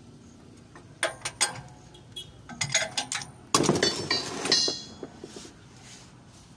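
Metal clinking and clattering from hand tools and steel parts: a few sharp clinks about a second in, another quick run of them, then a louder scraping clatter that ends in a brief metallic ring, followed by a few light ticks.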